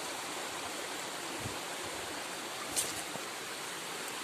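Shallow forest stream trickling steadily over rocks, with one brief sharp click a little under three seconds in.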